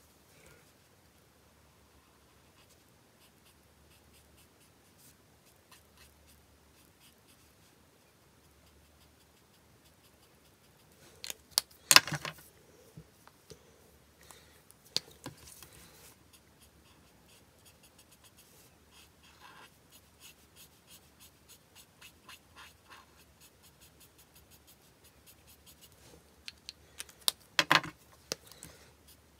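Alcohol marker tip stroking on card stock, faint and repeated. Louder rustles and knocks of the card being moved and turned on the mat come about twelve seconds in and again near the end.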